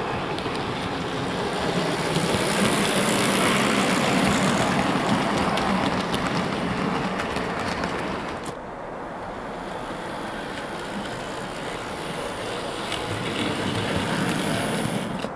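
Dapol Class 22 model diesel locomotive running on the layout's track with a short train of milk tank wagons: motor hum and wheels rolling on the rails as a steady noise. The sound drops about eight and a half seconds in, then builds again as the train passes near the end.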